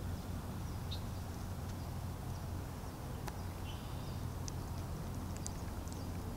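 Quiet outdoor ambience at the edge of a still marsh: a steady low hum with faint scattered high ticks, and a brief high chirp about three and a half seconds in.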